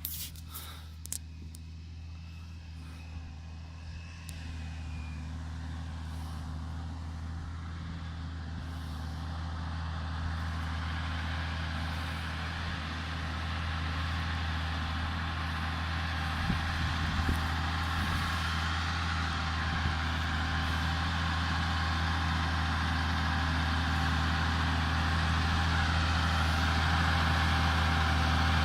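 Valtra T171 tractor's six-cylinder diesel engine running steadily, growing gradually louder, with a few sharp clicks near the start.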